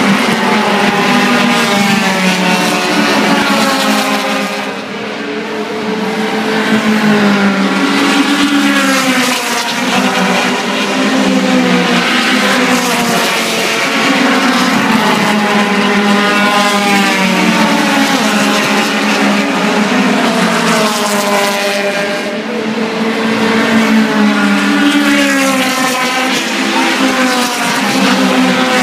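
Several 1500–1600 cc touring race cars pass at speed, several engines at once, their pitch rising and falling as they rev and change gear. The sound dips briefly about five seconds in and again about twenty-two seconds in.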